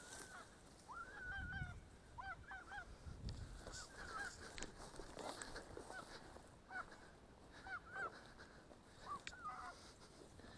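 Faint honking calls of a flock of geese, many short calls following one another throughout.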